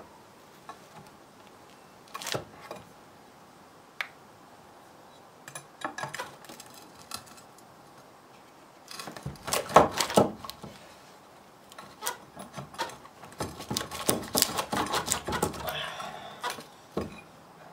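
Old wooden board being worked loose from the top of a concrete foundation wall: scattered knocks, clatter and scraping of wood, sparse at first and busiest in two spells, about nine seconds and thirteen seconds in.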